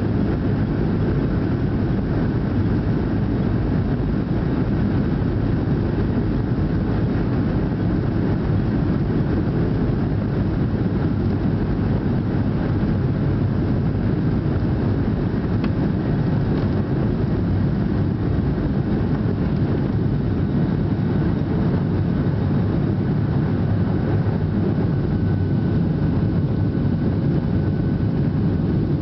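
Cabin noise of a Boeing 737-800 at takeoff thrust, heard from a window seat over the wing: its CFM56-7B turbofans and the runway rumble make a steady, loud, deep roar through the takeoff roll and into the initial climb. A faint high steady whine joins near the end.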